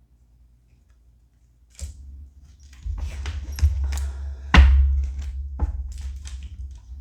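Tarot cards being handled and shuffled: rustling and clicking with low thumps on the table, starting about two seconds in, the loudest thump about halfway.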